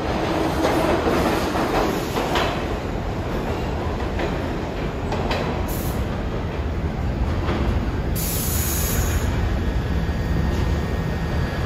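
New York City subway train running through the station: a steady rumble with occasional clicks, and a brief high hiss about eight seconds in.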